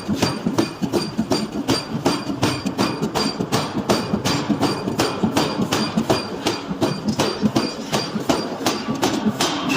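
A power hammer forging a steel knife blank, striking in a steady, even rhythm of about four blows a second, each blow with a faint metallic ring.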